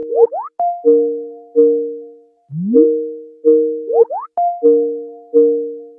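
Video-call app's ringing tone: a short synthesized chime tune with quick upward slides, each note fading away. The phrase repeats about every three and a half seconds.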